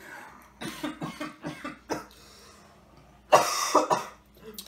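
A boy coughing: a few short coughs in the first two seconds, then two louder coughs a little over three seconds in. His throat is burning from habanero hot sauce he has just tasted.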